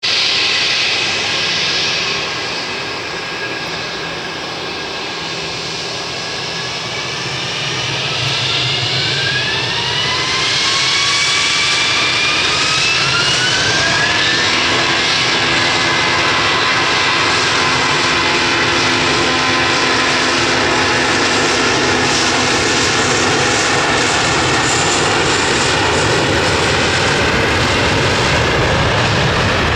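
Airbus A320's IAE V2500-A1 turbofan engines winding up for takeoff: a whine climbs steadily in pitch over several seconds, then the engines run steady and loud at takeoff power.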